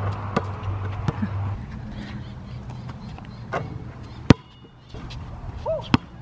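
Basketball bouncing on a hard court: several sharp separate thuds, the loudest a little past four seconds in. A brief high squeak comes near the end.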